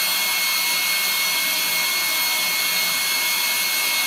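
Air-driven and suction dental equipment giving a steady hiss with a thin, high whine during sonically activated root canal irrigation.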